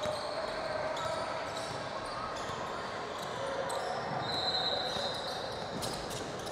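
Basketball dribbled on a hardwood gym floor, the bounces echoing in the hall amid steady court noise, with a brief high squeak about four seconds in.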